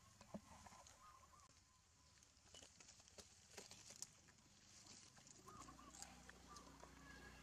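Near silence, with a few faint soft ticks and some faint short animal calls.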